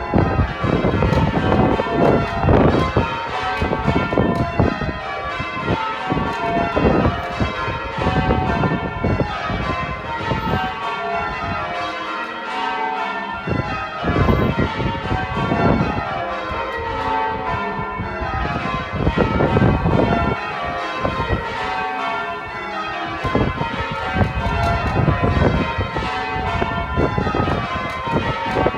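Church bells ringing in a continuous peal. Bells of different pitch strike one after another in quick succession, and their tones overlap and ring on.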